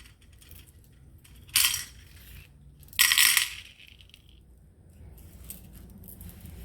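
Small crystal beads clattering into a little cup in two short bursts, about a second and a half apart.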